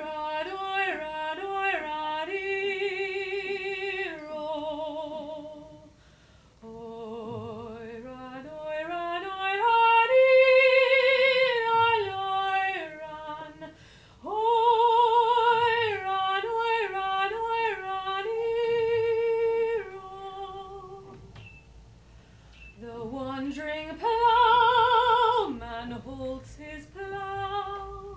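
A woman singing unaccompanied, in long held notes with vibrato. About seven seconds in there is a slow rise in pitch, and there are short pauses between phrases.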